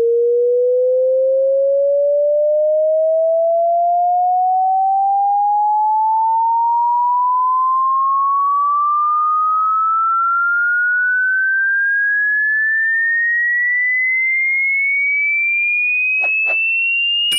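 Pure sine test tone of a hearing-test frequency sweep, rising slowly and steadily in pitch from a mid tone to a high whistle. Two faint clicks come near the end.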